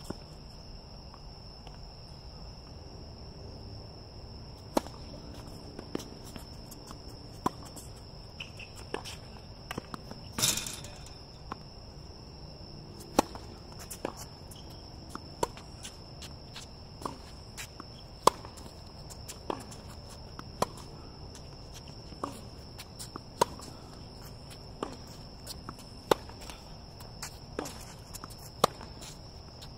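Tennis rally on an outdoor hard court: sharp pops of the ball off racket strings and bounces on the court, roughly one every second, over a steady high insect trill. A short louder scuff comes about ten seconds in.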